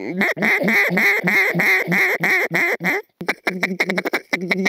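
Mallard duck call blown by hand: a run of about a dozen even quacks, roughly four a second, then after a short break a fast chatter of short clipped notes.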